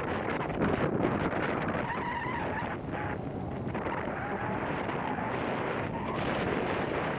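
Wind buffeting an action camera's microphone, a steady rushing noise, with a faint brief pitched sound about two seconds in.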